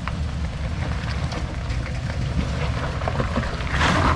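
Toyota Sequoia's V8 engine running at low revs as the truck crawls over rocks and mud, with its tyres crunching over the rocks, louder near the end.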